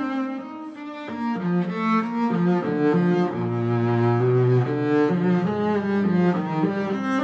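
Background music: a bowed cello playing a flowing melody of quick, changing notes.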